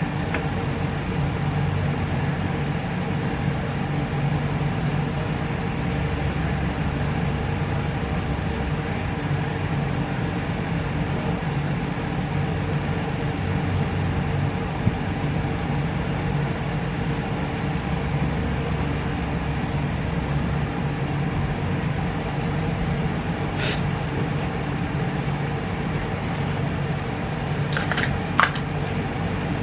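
Steady mechanical hum, with a few light clicks near the end.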